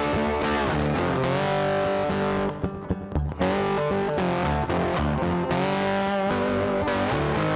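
Guitar-led background music with sustained, sliding notes, dipping briefly a little before the middle.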